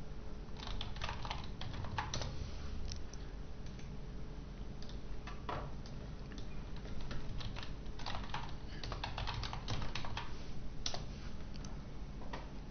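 Computer keyboard typing: short irregular runs of keystrokes, a busy flurry in the first few seconds and another about eight to ten seconds in, with scattered single clicks between.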